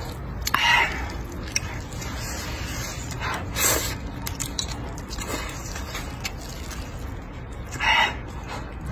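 A person slurping and chewing wide noodles, with three louder slurps: about a second in, midway, and near the end.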